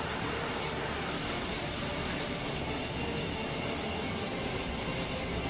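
Northrop Grumman E-2 Hawkeye's twin turboprop engines running at full power as it is catapulted off a carrier deck and climbs away: a steady, even engine noise with a faint high whine.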